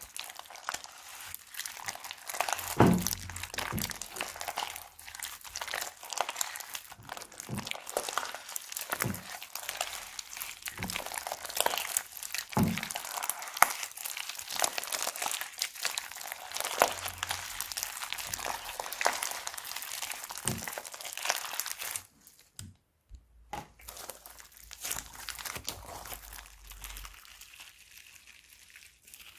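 Plastic bags and slime crinkling and crackling, a dense run of small crisp clicks as they are squeezed and handled. The sound breaks off briefly about three quarters of the way through, then carries on more quietly.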